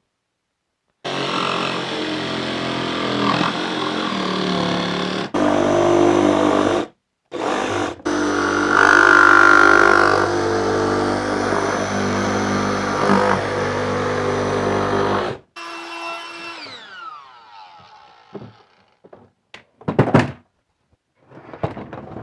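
DeWalt cordless jigsaw cutting through the plastic lid of a Milwaukee Packout tool box, running in several stretches with short pauses. About fifteen seconds in it winds down with a falling pitch. A few sharp knocks follow near the end.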